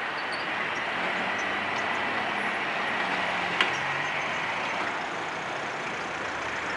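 Street traffic: a motor vehicle, likely a truck or bus, passes close by, a little louder in the middle. There is a single sharp click about three and a half seconds in.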